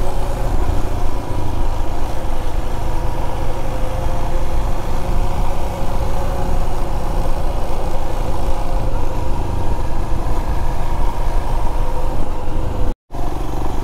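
Motorcycle engine running steadily under a heavy low rumble, with a brief dropout near the end.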